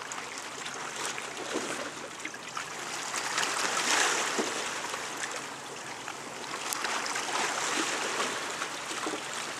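Sea water washing and lapping against a harbour pier, a steady rush that swells about four seconds in and again near the end.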